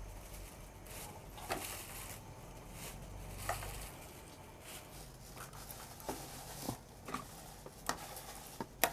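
Clear plastic bag crinkling and a scatter of soft clicks as pieces of cooked chicken are handled and pushed onto bamboo skewers, with a sharper click near the end.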